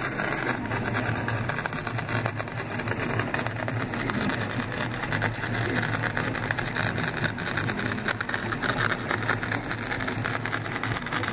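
Stepper motors of a CoreXY sand-drawing CNC machine running steadily as they drive the drawing head through the sand.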